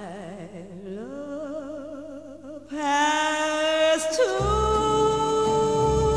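Spy-theme title song: a voice holds long notes with wide vibrato and slides between pitches. The accompaniment swells louder about three seconds in, and a deep bass comes in just after four seconds.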